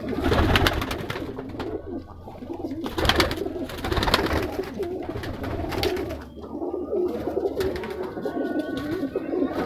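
Many domestic pigeons cooing together in a small enclosed loft, a continuous wavering murmur, with wing flaps from birds fluttering between the perches several times.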